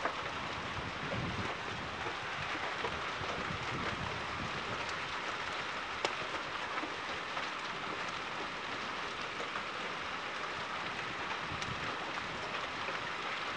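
Severe thunderstorm downpour: heavy rain hissing steadily as it pours, with scattered sharp ticks of gumball- to cherry-sized hailstones striking hard surfaces, one sharper crack about six seconds in.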